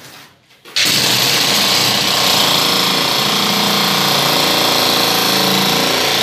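Electric demolition hammer breaking up a concrete floor, starting about a second in and then hammering steadily and loudly with its chisel bit in the concrete.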